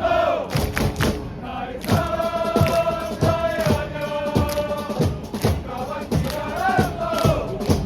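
Football supporters singing a chant together on long held notes, backed by a drum struck steadily about twice a second.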